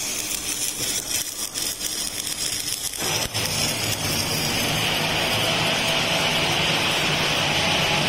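Electric arc welding on a hydraulic cylinder rod end. The arc crackles for about the first three seconds, then settles into a steadier hiss over a low workshop hum.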